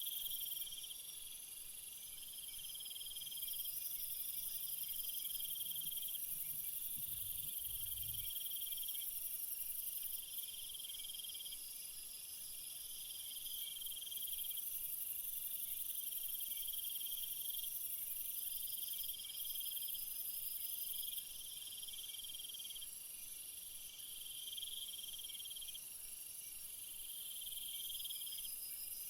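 Chorus of insects, with repeated pulsing trills lasting a second or two each, coming about every two to three seconds over a steady high-pitched hiss of insect song.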